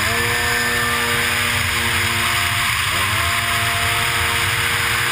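Racing jetski's engine at high revs, heard from on board: its note drops sharply and climbs straight back twice, at the start and just under three seconds in, as the throttle is eased and reopened. A steady rush of wind and water spray runs underneath.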